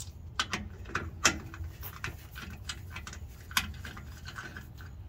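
Scattered light metallic clicks and clinks as the loosened fill plug is unscrewed by hand from the rear differential cover, with the socket and plug knocking against the metal.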